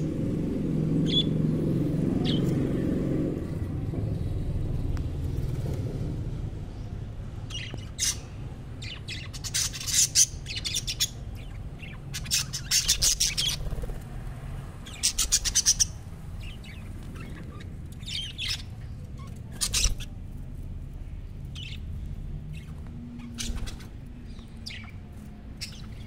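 Budgerigars chirping in scattered bursts of quick, high chirps, over a low background rumble that fades after the first few seconds.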